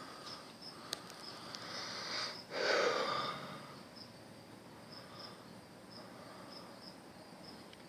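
Insects chirping faintly outdoors in short, irregular high chirps, with one loud breath from a person about three seconds in.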